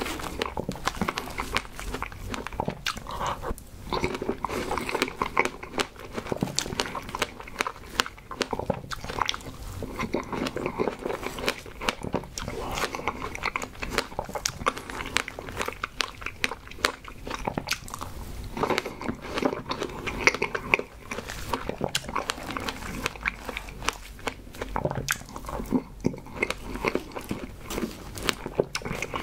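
Chewing and biting of fresh strawberries with whipped cream: a steady run of short mouth clicks and smacks.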